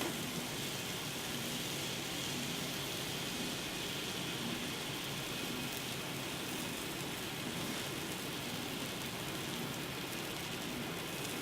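Egg noodles frying in oil in a wok, a steady even sizzle.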